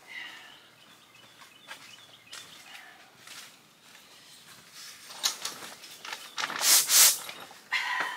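Rustling of the portable carport's fabric wall and light knocks as someone works at the back opening, with the loudest rustle about six and a half seconds in.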